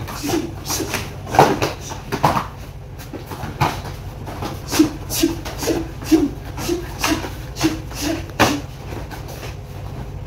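Sharp slaps and thuds of a two-person pencak silat sparring exchange: strikes, blocks and bare feet landing on foam mats, in quick irregular bursts. In the middle comes a quick, even run of short low sounds, about two to three a second.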